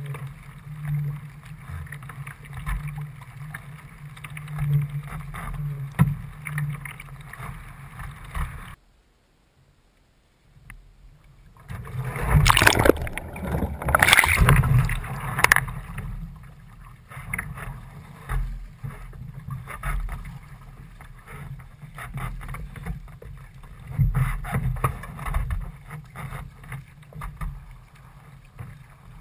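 Water sloshing and splashing around a sea kayak as it is paddled, with wind on the microphone. It drops out briefly about a third of the way in, then comes back with a few seconds of loud, heavy splashing before settling to lighter, irregular splashes.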